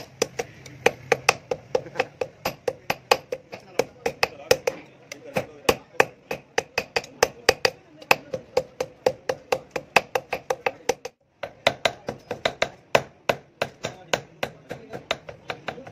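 Hand hammer striking red-hot steel on an anvil block in quick, steady blows, about three a second, each with a short metallic ring: hand-forging a sickle blade from an old file. A brief break about eleven seconds in.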